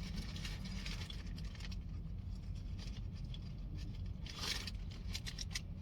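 Soft eating noises, with quiet chewing and small clicks of handling food, over a steady low hum. There is a short louder rustle about four and a half seconds in.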